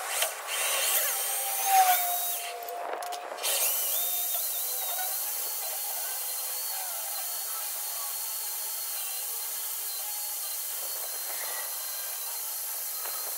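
Corded hammer drill boring out a steel lower ball joint rivet, heard sped up tenfold in time-lapse so that it comes out as a high, hissy whine. It is uneven for the first few seconds, then runs steadily from about four seconds in.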